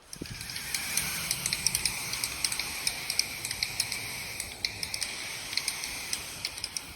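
Eurasian wryneck nestlings inside the nest hole making a strange, dense hissing noise full of rapid ticking clicks. It starts suddenly and eases off slightly near the end.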